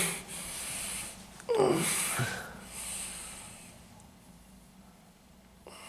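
A person's short, falling groan with a snort of breath about one and a half seconds in, followed by a fainter breath that fades away.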